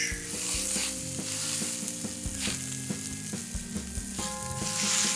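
Spinach and broccoli sizzling in a hot cast-iron skillet, a steady frying hiss as handfuls of leaves are dropped in.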